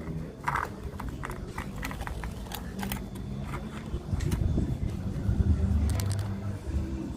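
Irregular sharp clicks and snaps from a small fire in a tin can being tended, over a low rumble that grows louder about four seconds in.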